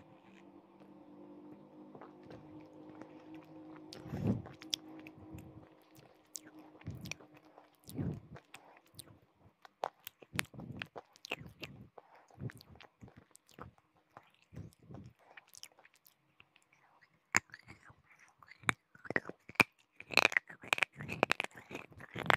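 Close-miked biting and chewing of hard, brittle pieces of clay pot, with sharp crunches. A few heavy bites come in the first half, then the crunching grows denser and louder over the last few seconds.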